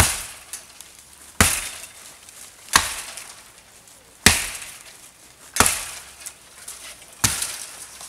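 Axe chopping wood: six strokes, one about every second and a half, each a sharp bite into the wood.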